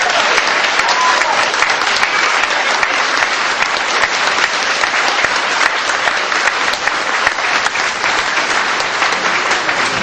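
Audience applauding: many people clapping steadily for the whole stretch.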